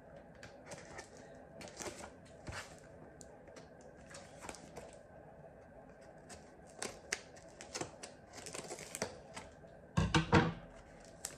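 Scissors cutting and scraping at the packing tape of a cardboard shipping box, a scatter of short clicks and scrapes, with a louder cluster about ten seconds in.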